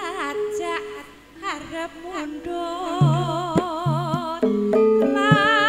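Campursari music: a woman singing into a microphone, holding long notes with a wide vibrato in the second half, over band accompaniment with a repeating bass line.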